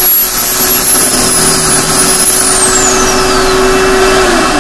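Shop vacuum running loudly as dust extraction for a pocket-hole drilling machine: a steady motor hum under a high whine. The whine falls in pitch about two and a half seconds in, and the hum drops near the end as a motor winds down.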